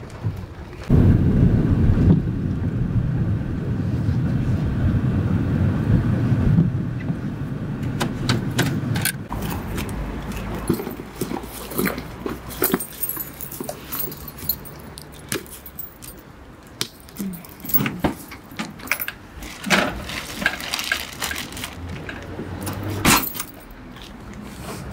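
A low rumbling noise for the first several seconds, then scattered clicks, clunks and rustling of keys and plastic bags being handled at a car's boot, with keys jangling in the boot lock near the end.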